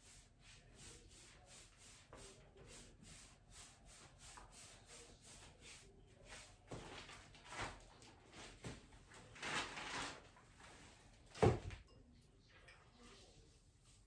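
A paint brush working paint onto a wooden hutch in quick, even strokes, about three a second. It is followed by a few louder brushing scrapes and one sharp knock about eleven and a half seconds in.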